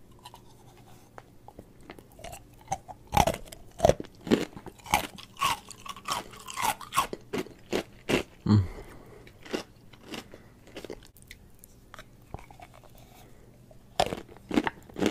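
Close-up crunchy chewing of ice dusted with cornstarch: after a few quiet seconds, a run of sharp crunches, a lull, then another crunching bite near the end.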